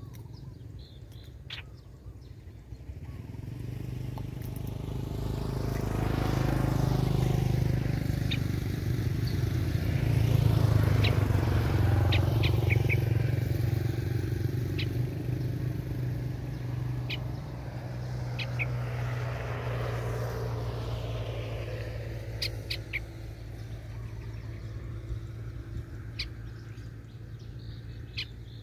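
A motor engine passing by, its steady low hum growing louder over several seconds, peaking about ten seconds in, then slowly fading. Short, high bird chirps sound here and there through it.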